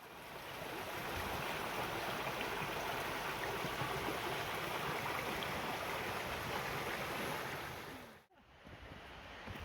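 Waterfall rushing steadily. About eight seconds in the sound cuts off abruptly, and a quieter rush follows.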